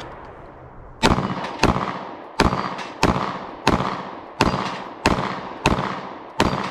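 Smith & Wesson M&P Shield Plus micro-compact pistol fired one-handed in a steady string of nine shots, about one every two-thirds of a second, at a rack of steel plates.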